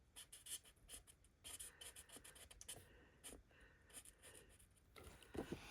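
Faint scratching of Stampin' Blends alcohol markers stroked quickly back and forth across cardstock while colouring in a stamped image, with a soft knock near the end.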